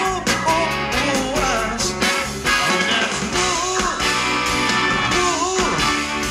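Live pop-rock band music through a concert PA: a steady drum beat and electric guitar under a melody line that bends up and down in pitch.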